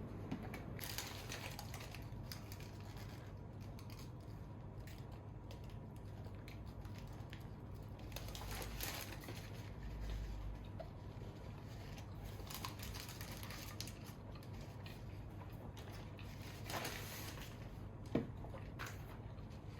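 Scattered light clicks, taps and rustles of objects being handled, over a steady low hum, with a sharper tick near the end.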